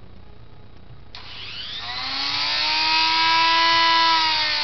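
Handheld electric rotary tool switched on about a second in, its motor whine rising as it spins up to speed, then running steady at a high pitch.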